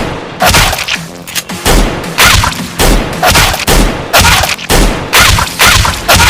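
A rapid series of loud gunshot-like bangs, about two a second, with deep booms under several of them, over background music.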